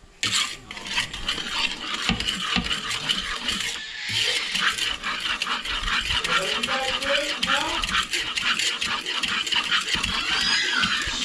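Wooden spoon stirring pancake mix and water in a mixing bowl: fast, continuous scraping and tapping of the spoon against the bowl as the batter is mixed.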